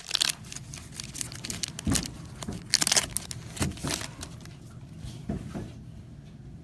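Foil trading-card pack wrappers crinkling and tearing as hockey card packs are opened and the cards handled, with a few soft knocks on the table.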